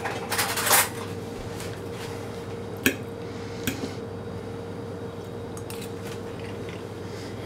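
A short rustle, then a fork clinking twice against a ceramic dinner plate as pasta is lifted off it, over a faint steady hum.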